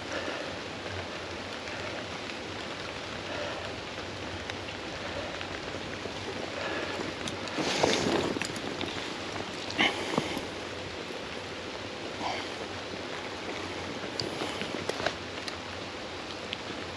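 Steady wash of water noise, the rush of river or rain, with a few short louder knocks and splashes about eight and ten seconds in.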